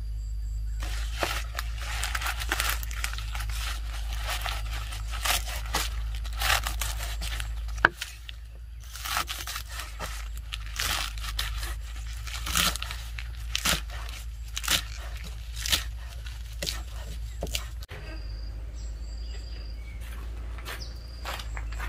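Chaya leaves handled by hand: irregular rustling, crunching and tearing over a steady low hum. Birds chirp in the last few seconds.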